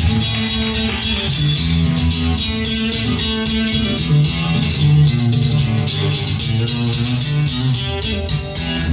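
A song played back through a Philips MCD 909 micro system and Onkyo SC-40 speakers: an instrumental, guitar-led passage with bass and a steady beat, without vocals.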